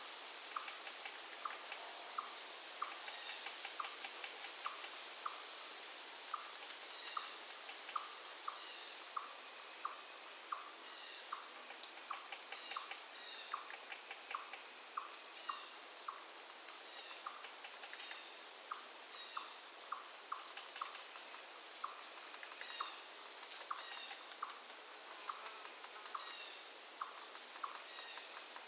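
Outdoor insect chorus: a steady, high-pitched insect trill of the cricket kind runs without a break. Short chirps repeat a little more than once a second, with a few louder, sharper chirps scattered through it.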